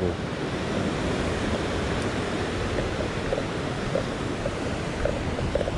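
Sea surf breaking and washing over rock ledges: a steady rushing wash of waves.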